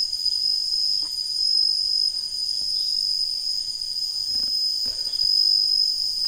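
Steady high-pitched trilling of a night chorus of crickets. A few faint splashes come from hands feeling through shallow water, about a second in and again around four to five seconds.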